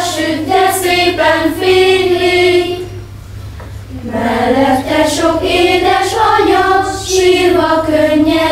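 Children's choir singing a melody, two sung phrases with a short pause for breath about three seconds in.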